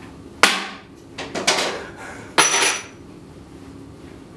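A few sharp, irregularly spaced knocks or clacks. The loudest comes about two and a half seconds in and carries a brief metallic ring.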